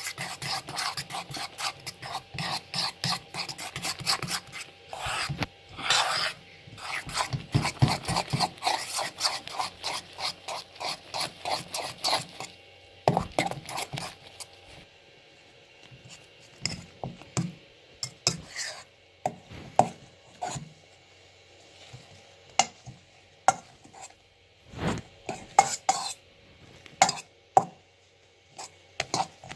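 Homemade slime of glue, shaving foam and contact lens solution being stirred in a bowl, the utensil scraping the bowl in quick, steady strokes; about twelve seconds in it slows to scattered scrapes and clicks as the contact lens solution thickens the mix into slime.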